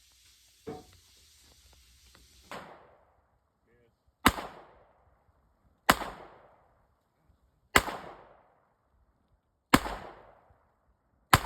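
Ruger Security-Six revolver firing .38 Special rounds: five sharp, loud shots about one and a half to two seconds apart, each trailing off in a brief echo. A softer knock comes a couple of seconds before the first shot.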